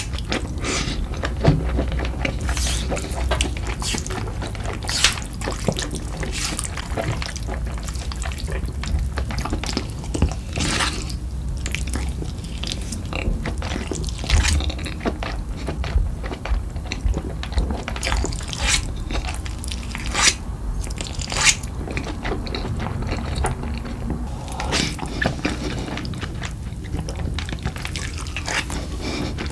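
Close-miked eating of spicy cold noodles in chili sauce: wet slurping and chewing, full of sharp, irregular wet smacks and clicks.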